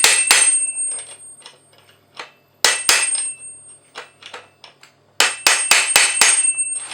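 Hammer blows on a wrench tightening a Husqvarna 543 XPG chainsaw's clutch, each strike leaving a short metallic ring. A fast run of strikes at the start, a few lighter taps, one loud strike a little before three seconds in, then another quick run of about six strikes near the end.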